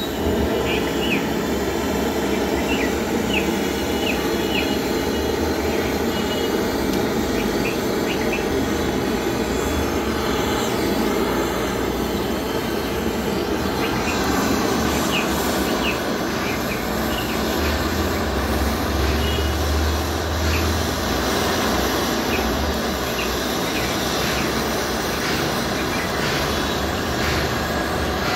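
Gas torch on a mini LPG canister burning with a steady rushing flame noise.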